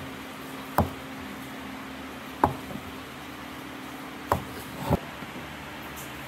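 Curved wooden pieces knocking together and against a wooden workbench as their joints are pushed together and fitted: four sharp, irregularly spaced wooden knocks over a steady low hum.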